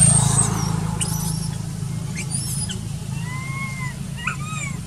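Macaque calls: a few thin, high squeaks and short rise-and-fall coo calls, over a steady low drone.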